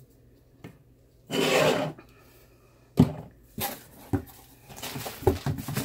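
Products and packaging being handled on a tabletop: a short hissing rustle about a second and a half in, a sharp knock about three seconds in, then scattered clicks and rustling.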